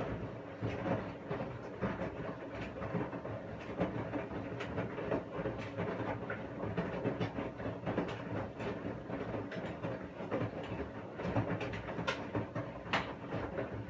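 Washing machine drum turning during the wash cycle, a steady churning hum broken by irregular clicks and knocks.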